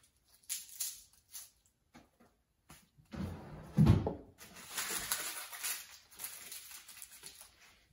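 Hand food prep with garlic cloves: faint ticks and crackles of papery skins being peeled, then a loud thump just before the middle and a few seconds of a knife cutting and scraping on a plastic cutting board.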